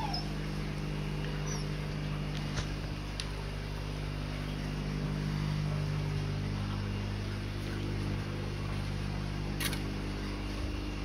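A steady low machine hum made of several even tones, with a short falling whimper from a puppy right at the start and a few faint clicks.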